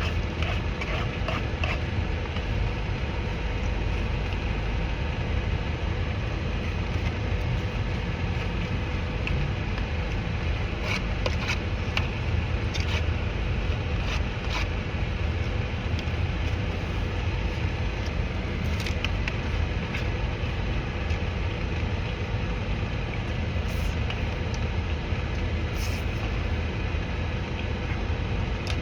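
Steady low rumble in the background, with scattered small clicks and smacks of someone eating.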